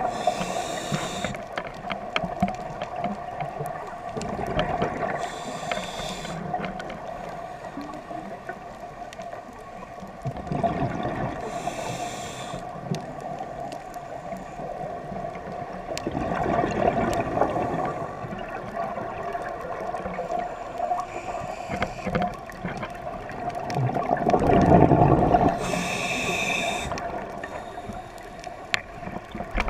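Scuba diver breathing through a regulator underwater: a short hiss on each inhale and a bubbling rush on each exhale, repeating about every six seconds, over a steady hum.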